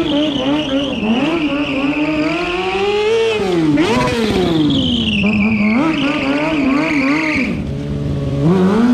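Sport motorcycle engine revving up and down again and again, its pitch rising and falling as the stunt rider works the throttle. A high whine runs above the engine throughout and slides lower about halfway through.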